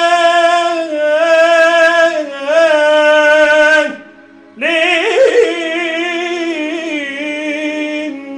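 A man singing long, held, wavering notes without clear words, in two sustained phrases that break for a breath about four seconds in, then a third phrase.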